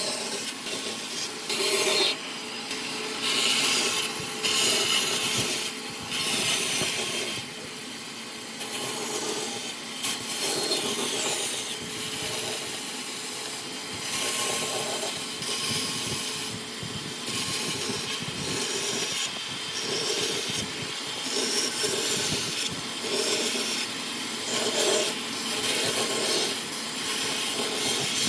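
A woodworking tool cutting wood, in uneven rasping strokes that swell and ease every second or so.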